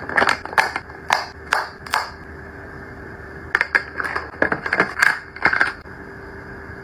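Quick sharp clicks and taps of makeup compacts and their hard plastic and metal cases being handled, over a steady background hum. There are about five evenly spaced clicks, then after a short pause a quicker cluster of them.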